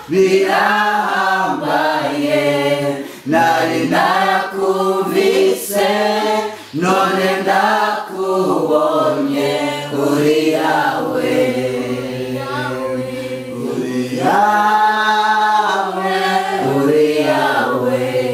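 A small mixed group of young men and women singing together unaccompanied, a cappella, in sustained phrases with brief breaks between them.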